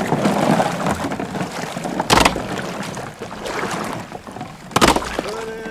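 Water sloshing and splashing as a hunter wades and handles a bundle of duck decoys on their lines, with two sudden louder hits, about two seconds in and near the end.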